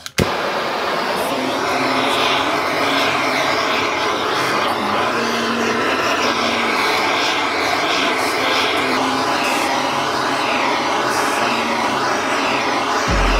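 Simson S51 two-stroke single-cylinder moped engine running, its pitch rising and falling with the revs. A heavy bass line comes in near the end.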